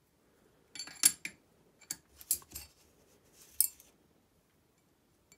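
Steel pushrods clinking against each other and the engine block as they are set one by one into the tappets of a Fiat 126 BIS engine: a handful of light metallic clinks, the loudest about a second in.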